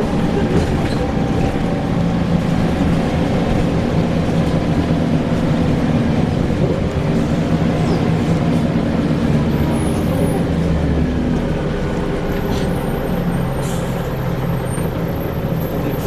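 Scania L94UB single-deck bus running, its engine note rising and falling as it drives, with a thin high squeal coming and going in the second half.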